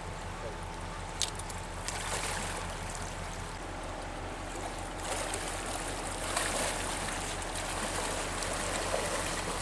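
Creek water flowing and trickling steadily, with a couple of sharp clicks just over a second in and a louder, hissier stretch a little past the middle.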